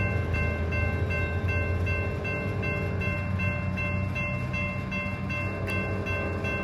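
Railroad crossing bell ringing at an even rhythm over the steady low rumble of a CSX manifest freight train at the crossing.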